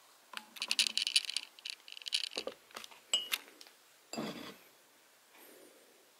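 Metal teaspoon clinking rapidly against a glass mug of milk as it stirs and scoops foam, about two seconds of quick clinks, then a few separate taps on the glass. A duller knock about four seconds in.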